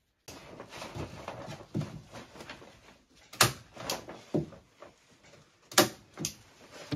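Plastic bubble-wrap insulation sheet crinkling as it is handled overhead, with about six sharp clacks of a hand staple gun fixing it, two of them louder than the rest.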